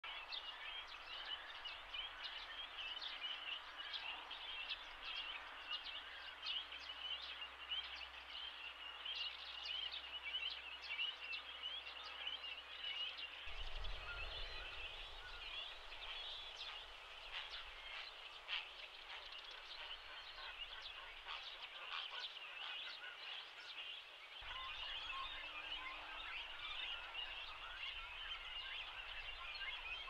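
Dense, steady chatter of many short, high-pitched bird calls, typical of a great cormorant nesting colony with nestlings calling.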